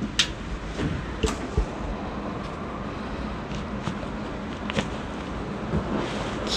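A few scattered sharp clicks and soft knocks from handling during a chiropractic adjustment on a treatment table, with a low thump about one and a half seconds in.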